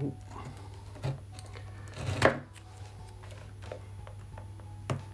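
Kitchen knife cutting into earbud packaging, the blade striking the tabletop with about four sharp knocks, the loudest about two seconds in.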